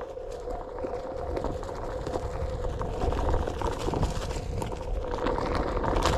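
Onewheel GT electric board ridden over a dirt forest trail: a steady hum from the board under the rumble of its tyre on dirt, with many small clicks and crackles. It gets louder after about five seconds.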